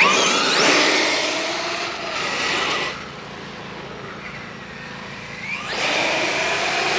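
Arrma Kraton 8S brushless electric RC monster truck accelerating at its 75% throttle limit: a rising whine from the motor and metal drivetrain gears, in two bursts, one at the start and another from near the end, with lower running in between.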